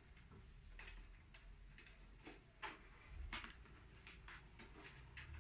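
Faint, irregular small clicks and taps of cables and plastic parts being handled inside a desktop PC case.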